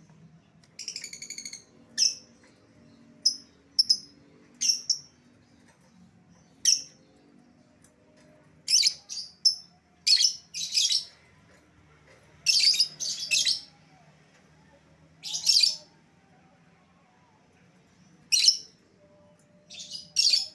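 Lovebird calling: short, shrill chirps given singly or in quick pairs and triples at irregular gaps, used as a lure call to bring back an escaped lovebird.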